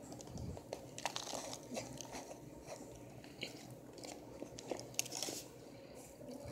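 Chunks of dry cornstarch crunching and squeaking between the teeth as they are bitten and chewed, close to the microphone. The crunches come in quick clusters, loudest about a second in and again near five seconds.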